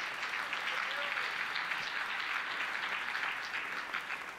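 Audience applauding steadily, a dense crackle of many hands clapping, fading a little near the end.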